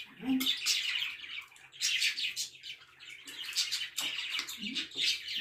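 Pet birds chirping in quick runs of high chirps, in several bursts with short gaps between them.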